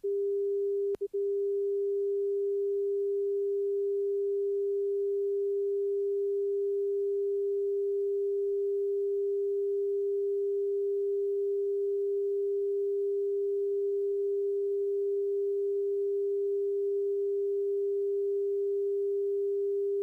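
Synthesized slip-skid indicator audio tone, a single steady mid-pitched note held without a break except for a brief double flutter about a second in. Its position in the stereo field follows the slip-skid ball as rudder is applied, shifting left and right.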